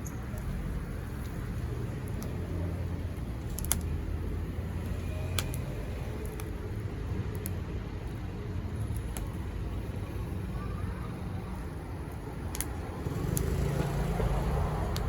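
Wood fire crackling, with a few sharp isolated pops, over a low steady engine-like hum that grows louder near the end.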